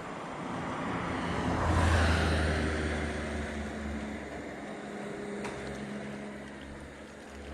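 An engine passing by: a low, steady drone that grows to its loudest about two seconds in, then slowly fades.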